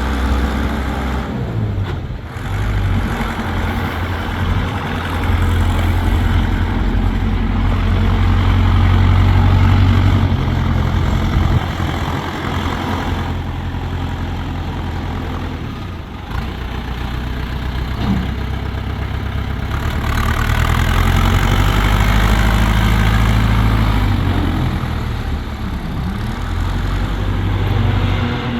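Massey Ferguson 750 backhoe loader's diesel engine running, growing louder twice for several seconds at a time and easing off again.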